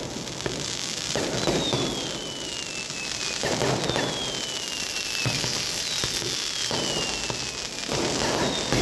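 Aerial fireworks and firecrackers going off in a continuous dense crackle, with a long falling whistle about every two seconds, four in all.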